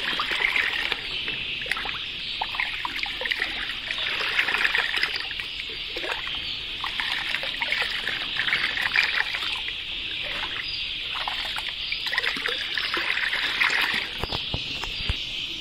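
Milky vaccine water being scooped up with a small plastic tub and poured back into a plastic bucket, splashing and trickling over and over as it is mixed. A steady high hiss runs underneath.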